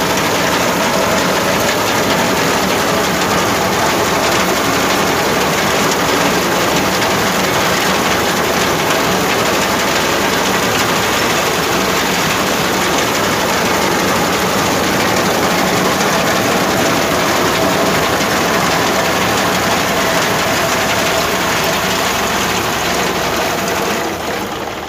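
Sonalika DI-734 tractor's diesel engine running under load with the steady mechanical noise of its mounted wheat reaper cutting standing wheat. The sound drops somewhat near the end.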